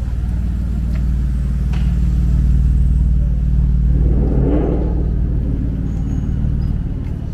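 Motor vehicle engine running close by: a deep steady hum that builds and then eases near the end.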